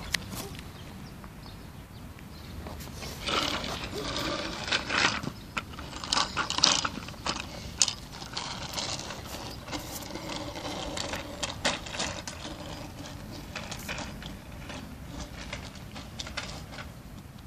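Small plastic tricycle rattling and clicking as it is handled and pushed along, in an irregular run of clicks that is busiest from about three seconds in and thins out after about twelve seconds.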